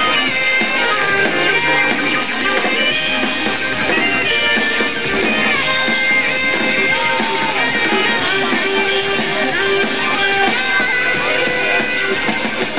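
Loud live electronic music played over a concert PA, with held melodic lines and pitch glides over a dense, continuous mix.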